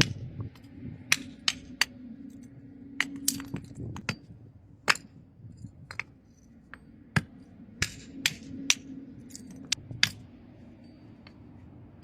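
Firewood being split by hand: a string of irregular sharp cracks and knocks of wood, about one a second.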